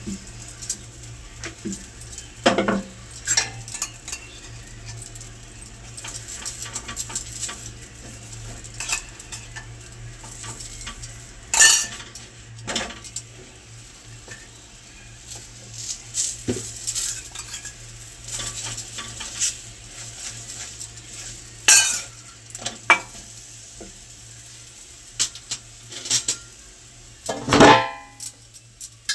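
Pots, pans and cutlery clinking and clattering in kitchen work, with scattered light knocks and a few loud sharp clanks, the last and loudest near the end. A low steady hum runs underneath.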